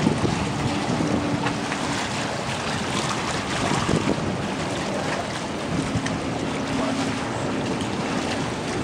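Wind buffeting the microphone over choppy water, with waves lapping and splashing. A faint steady hum comes in twice, briefly near the start and again for a few seconds later on.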